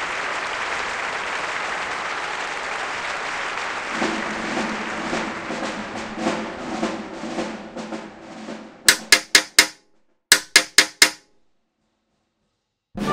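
Applause with music rising under it and fading away. Then come two quick runs of four sharp percussive hits, like drum strikes or claps, and a short silence. Music starts again right at the end.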